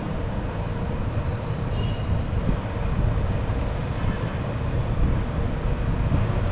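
Steady low rumbling background noise with no distinct events, like distant traffic.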